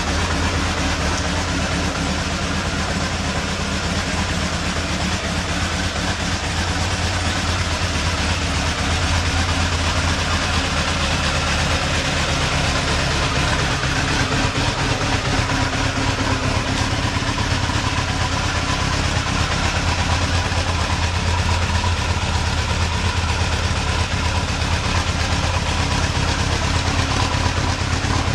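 Freshly rebuilt 1990 Honda CBR1000F's inline four-cylinder engine idling steadily, running smoothly after its rebuild.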